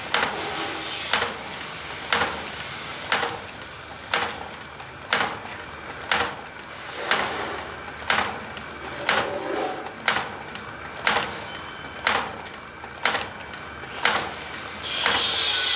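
Automatic wire hook bending machine running, its cam-driven bending slides clacking in a steady rhythm of about one sharp clack a second, with a running rattle between strokes.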